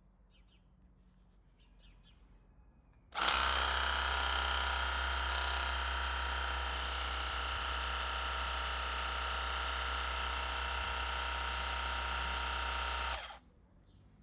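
Parkside PDRA 20-Li D4 20 V cordless pressure washer's motor and pump running steadily. It starts suddenly about three seconds in and cuts off abruptly about ten seconds later.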